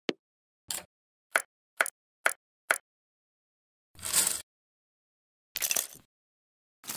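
Six short sharp clicks about half a second apart, then two longer clattering bursts: hard plastic toy pieces knocked and set down on a wooden cutting board.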